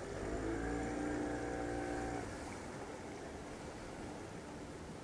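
Yamaha outboard motor on a small aluminium boat running, its note rising slightly just after the start and then dropping away about two seconds in, leaving a faint steady hiss.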